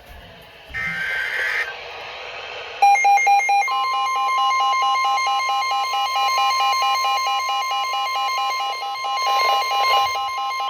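An emergency alert opening: about a second in, a short screech of SAME header data tones. About three seconds in, a rapidly pulsing alert tone starts, and from about four seconds in it is joined by the steady single-pitch NOAA Weather Radio 1050 Hz warning tone.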